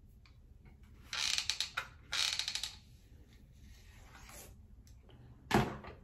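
Two short scraping strokes of a flat iron drawn down through long hair, about a second apart, then a single dull thump near the end.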